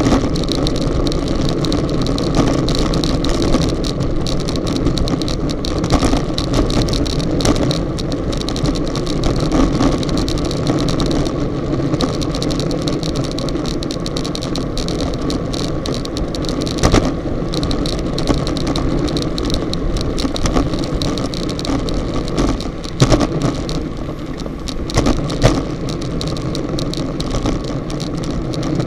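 Wind rushing over the microphone of a bike-mounted action camera and road noise at about 38 km/h, with scattered knocks and rattles as the camera jolts on its mount over the road.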